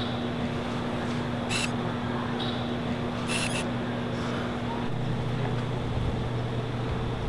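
Steady electronic drone made of several held tones, which shifts about five seconds in, with two short high-pitched electronic blips about a second and a half and three and a half seconds in.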